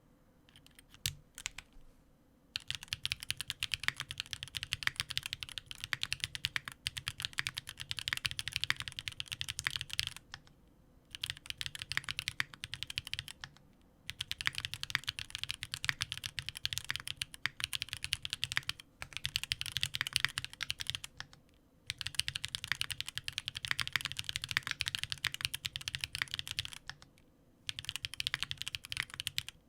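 Rapid typing on a Sangeo65 65% custom keyboard with stock, unlubricated Magma linear switches, an aluminium plate with plate foam and GMK Sloth keycaps. A few single keystrokes about a second in, then fast continuous typing in long runs broken by brief pauses.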